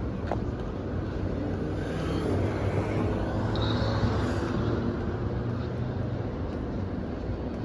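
City traffic: a motor vehicle's engine running close by, growing louder around the middle and then easing, over a steady background of road noise. A brief high squeak comes about halfway through.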